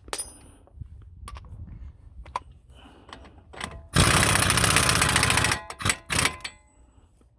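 Impact wrench running on a wheel hub's mounting bolt: one burst of fast rattling hammering lasting about a second and a half, then two short bursts. There is a sharp click near the start.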